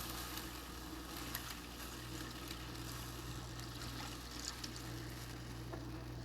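Brown gravy liquid sizzling steadily in a hot frying pan, with a few faint clicks, over a steady low hum.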